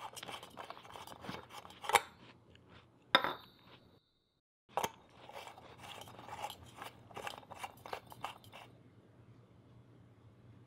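Gritty scraping, squeaking and clicking of a light bulb being screwed into a metal clamp lamp's socket, with two sharp louder clicks about two and three seconds in. The sound cuts out briefly about four seconds in and stops about nine seconds in.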